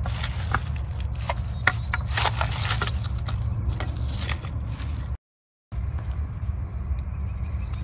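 A wooden walking stick scraping and prodding in crusty snow and dry leaf litter: a run of crisp crackles, scrapes and clicks over a steady low rumble. The sound cuts out for half a second just after five seconds, and after that only the low rumble goes on.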